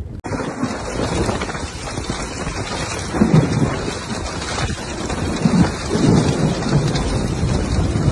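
Heavy rain pouring down in a thunderstorm, with low rolls of thunder swelling a few seconds in and again near the end.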